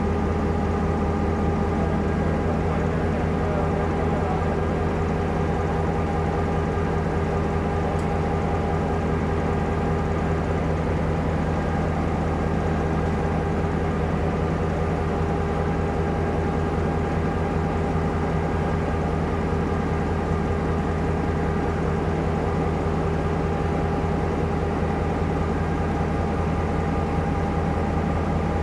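Diesel locomotive engine running steadily close by, a constant heavy hum with a few fixed tones.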